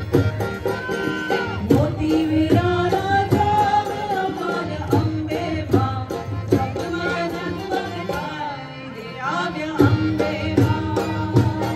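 Live Gujarati garba folk music: singing over harmonium with steady drumming on dhol, dholak and tabla. The music briefly thins out about eight seconds in, then the drums come back in.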